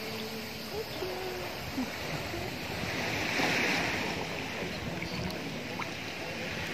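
Small waves washing and lapping in shallow sea water at the shore, swelling to a louder wash about three seconds in.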